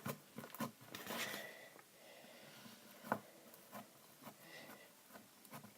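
Homemade slime with crushed orbeez mixed in being handled: faint soft squishes and scattered small clicks, one sharper click about three seconds in.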